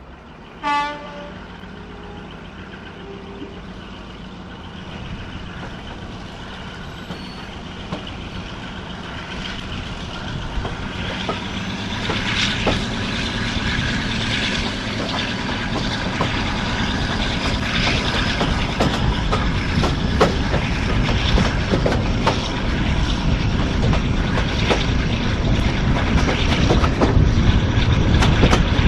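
A short toot from a locomotive's horn, then a heritage train getting under way: the running noise builds steadily louder, and the wheels click over the rail joints more and more often as it gathers speed.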